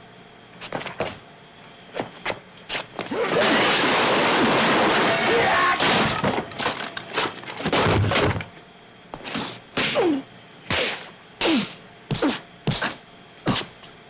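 Foley effects for a fight scene, made live with props: scattered knocks, then a loud crash lasting a few seconds about three seconds in, a heavy thud, and a run of about eight blows in quick succession.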